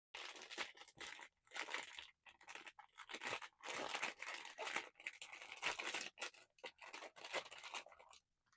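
Blind-box packaging being torn open and handled: tearing and crinkling of paper and plastic wrap in quick, irregular bursts.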